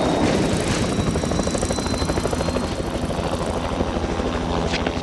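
Helicopter running, its rotor blades chopping in a rapid, even beat under a faint high turbine whine.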